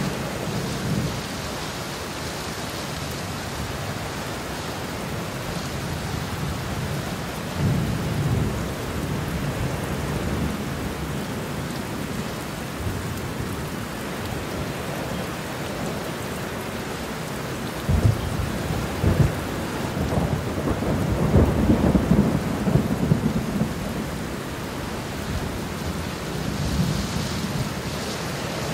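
Steady rain with rolls of thunder: a low rumble about a quarter of the way in, two sharp claps a little past halfway followed by a long rumble, and a softer rumble near the end.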